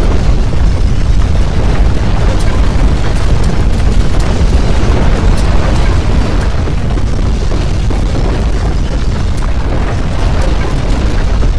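Loud, steady deep rumble with crackling and rattling throughout, the sound of strong earthquake shaking.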